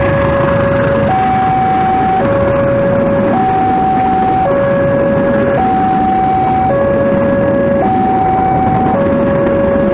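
Railway level-crossing warning alarm sounding a repeating two-tone low-high chime, each note held about a second. Underneath it is the steady noise of passenger coaches running past on the rails.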